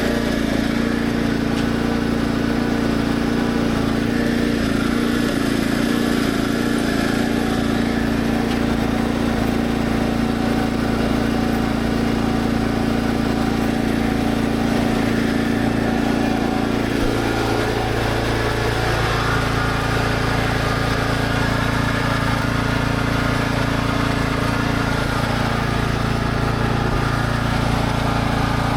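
Kubota SPJ400 rice transplanter's small engine running steadily, its pitch shifting slightly about eighteen seconds in.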